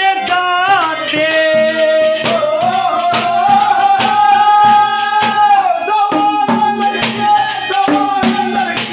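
Harmonium playing a melody in a Haryanvi ragni, with some long held notes, over regular percussion beats.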